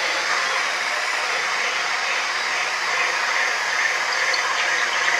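FLEX 24V Turbo hammer drill in drill mode on speed 2 with turbo on, running steadily under load as a 2½-inch hole saw cuts through a wooden board.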